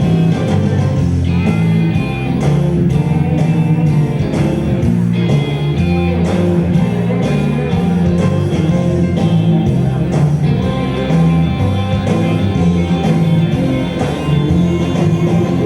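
Blues-style song with electric guitar, a steady beat and some singing, played for a West Coast Swing dance heat.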